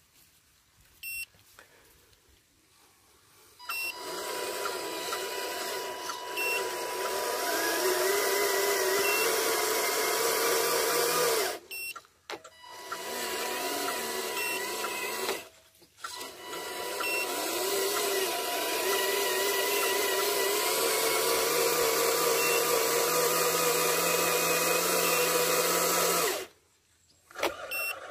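Electric drive motors and gearboxes of radio-controlled model trucks whining under load as they strain through mud. The whine starts after a few seconds of quiet, rises in pitch as they speed up, and stops and restarts several times, cutting off shortly before the end.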